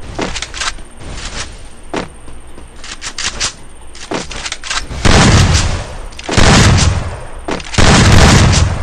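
Video-game gunfire: scattered single shots, then three loud blasts with a deep boom, about a second and a half apart, in the second half.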